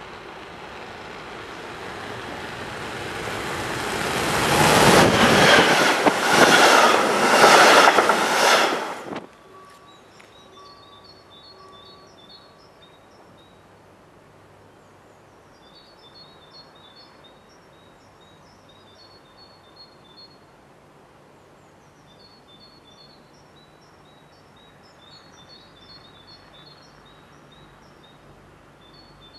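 CFL Class 4000 electric locomotive and double-deck coaches passing at speed: a rising rush of wheel and rail noise that peaks with a rapid run of clatter as the train goes by, then cuts off suddenly about nine seconds in. After that, small birds chirping in short repeated bursts over a quiet background.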